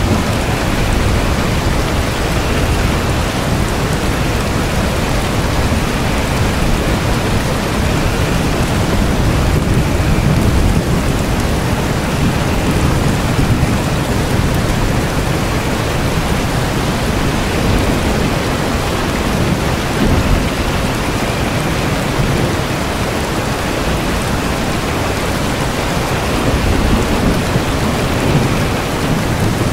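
Steady heavy rain with low rumbles of thunder that swell up a few times.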